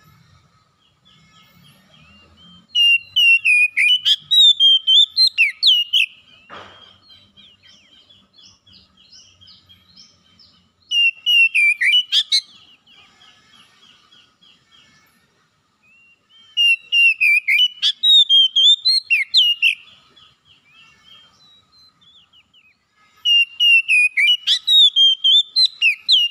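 Oriental magpie-robin singing loud, rapid whistled phrases in four bouts of about three seconds each, with faint chirping in the pauses between them.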